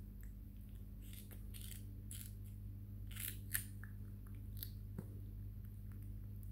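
Baby macaque chewing a mouthful of bitter melon: faint wet crunching and mouth clicks, with one sharp click about three and a half seconds in, over a steady low hum.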